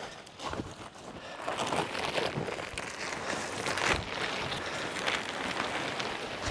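Heavy plastic tarpaulin rustling and crackling as it is dragged and gathered off a vehicle, growing louder about a second and a half in.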